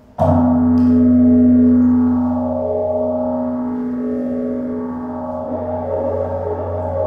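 A metal percussion instrument is struck once, about a quarter-second in, and left ringing. It gives a long, deep, gong-like ring made of several steady tones, one of which wavers in a slow beat, and the ring grows a little rougher near the end.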